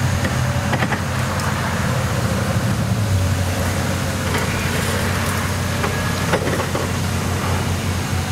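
Engine of the pickup truck towing the car trailer idling: a steady low hum that drops slightly in pitch about three seconds in, with a few light knocks over it.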